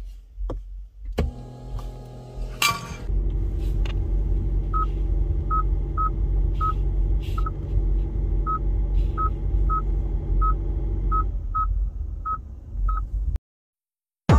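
Hyundai car engine started by push button about a second in, then idling with a steady low hum. Over the idle come about fifteen short, identical beeps at uneven spacing as touchscreen keys are pressed. The sound cuts off suddenly near the end.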